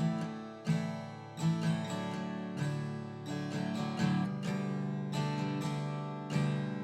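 Acoustic guitar music: strummed chords, a new strum about once a second, each left ringing.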